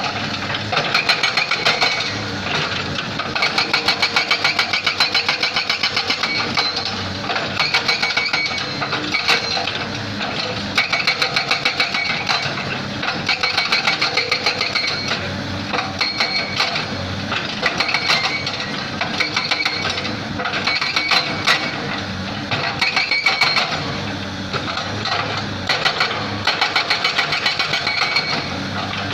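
Excavator-mounted hydraulic breaker hammering rock in repeated bursts of rapid blows, each burst lasting one to three seconds, with the excavator's engine running between bursts.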